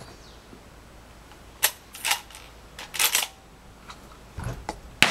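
A few sharp clicks and clacks, then near the end a single .357 Magnum gunshot, much louder than anything before it, followed by a long fading echo.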